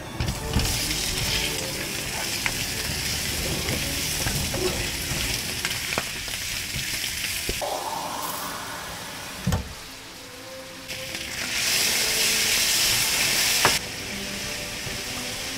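Chicken pieces sizzling as they go into a hot pan of chili paste and are stirred. About halfway through, water runs from a tap into a glass, its pitch rising as it fills, followed by a sharp knock. A second loud stretch of hiss cuts off shortly before the end.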